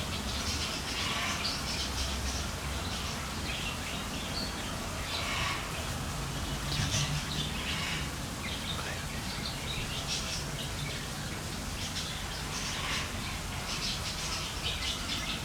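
Small birds chirping repeatedly over a steady low background rumble.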